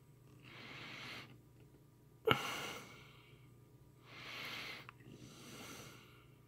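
A man breathing heavily through his nose, about four slow breaths, with a sharp click a little over two seconds in.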